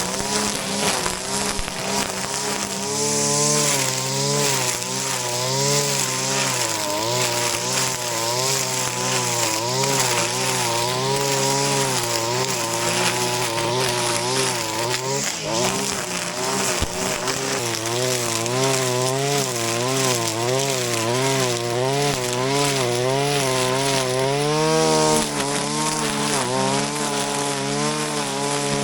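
Shindaiwa RK3026-PT brush cutter's 25.4 cc two-stroke engine running at high speed while cutting grass, its pitch rising and falling over and over as the cutting head swings through the growth and the load comes and goes.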